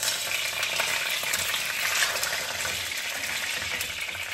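Belyashi, meat-filled dough patties, frying in hot oil in a pan: a dense, steady sizzle that sets in suddenly as a patty goes into the oil, with a few sharp pops.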